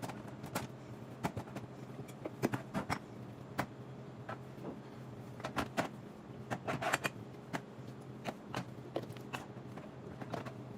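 Jars, bottles and cartons being set down and shuffled onto a plastic refrigerator shelf, a run of irregular knocks and clicks with a busier cluster about two-thirds of the way through, over a steady low hum.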